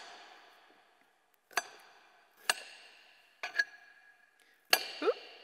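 Kitchen knife chopping cucumber on a chopping board: single sharp chops about a second apart, each leaving a short ringing tail.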